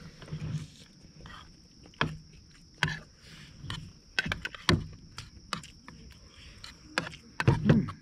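Metal spoon clicking and scraping against a ceramic plate during eating: a scatter of short sharp clicks, several close together near the end.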